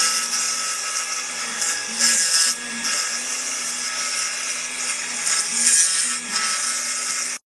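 A homemade CPC-RC55 kit CNC engraving machine carving a wooden plaque: a steady spindle whine under a hiss from the bit cutting the wood, which swells and eases as the tool moves. The sound cuts out completely for about half a second near the end.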